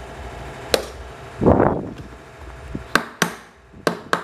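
Sharp taps of a hand tool on metal fan-motor parts: a single click about a second in, a brief rush of noise just after, then four quick knocks in two pairs near the end.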